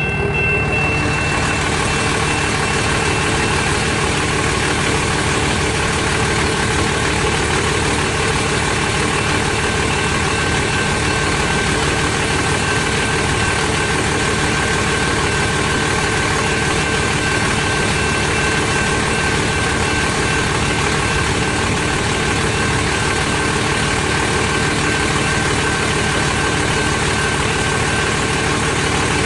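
An engine running steadily: a constant low rumble under an even hiss with a faint steady whine, unchanging in level throughout.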